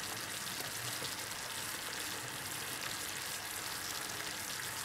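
Cream sauce with diced ham bubbling in a frying pan, a steady, quiet sizzle at the boil.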